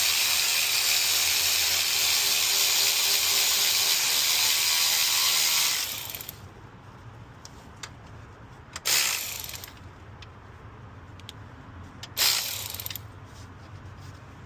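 A ratchet wrench turning the alternator belt-tension adjusting bolt to tighten the drive belt. It runs steadily for about six seconds, then comes in two short bursts a few seconds apart.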